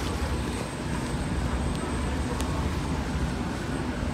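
Steady low rumble aboard a Star Ferry under way: the ferry's engine running, mixed with the rush of water and wind.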